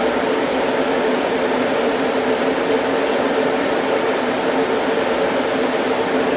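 Cooling fans of a Sun E10000 server running: a loud, steady rush of air with a constant hum in it.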